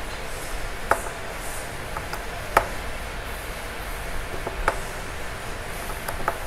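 A small hex driver tightening the screws of a metal beadlock ring on an RC crawler wheel, with four light, sharp clicks spread through, over a steady low hum.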